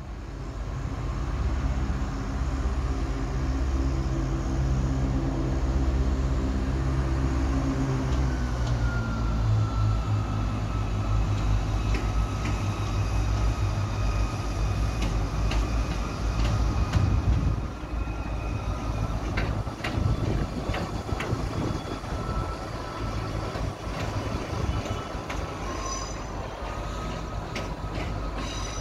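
Diesel train engine running with a low throb. From about eight seconds in, a steady high whine joins as the train gets moving, and scattered clicks follow through the second half.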